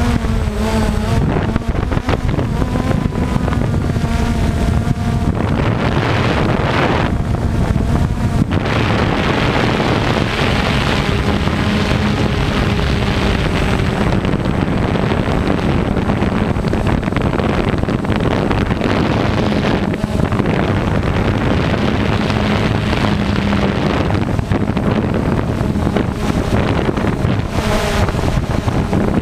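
DJI Phantom quadcopter's motors and propellers humming steadily as picked up by its onboard camera, with wind buffeting the microphone. The hum's pitch wavers slightly as the motors change speed.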